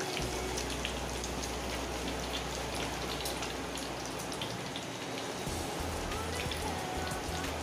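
Egg batter deep-frying in hot oil in a wok, a steady sizzle with many small crackles as it is rolled around a skewer into telur gulung.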